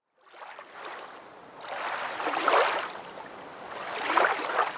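Rushing, splashing water that swells twice, loudest about two and a half and about four seconds in.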